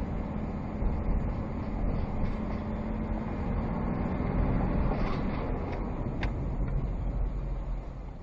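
Motor vehicle running with steady road rumble; the level drops near the end.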